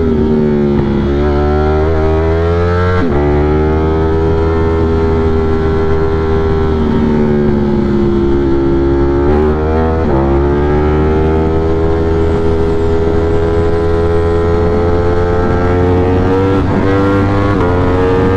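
Ducati Streetfighter V4 engine running at steady cruising revs, heard from the rider's seat over wind rush. The pitch holds fairly level, with a few sudden dips as the throttle is rolled off or gears change, about three seconds in, about ten seconds in, and briefly near the end.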